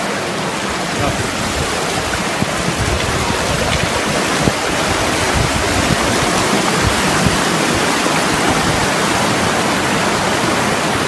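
Steady rush of water, a dense even hiss without pauses.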